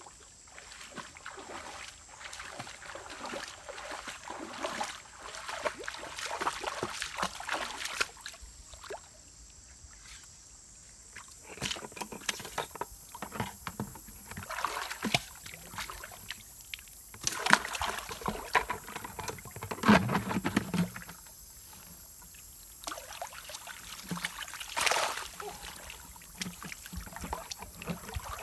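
Shallow river water splashing and sloshing irregularly as a person wades and handles a collapsible umbrella fish trap net, with a few louder splashes in the second half.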